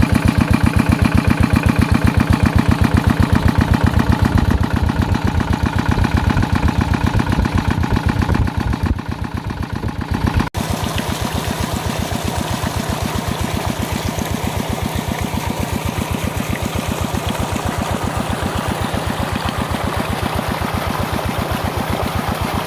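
Water pump engine running steadily with a rapid, even chugging while pumping out a pond. About ten seconds in the sound cuts abruptly to a slightly quieter stretch of the same kind of engine chugging.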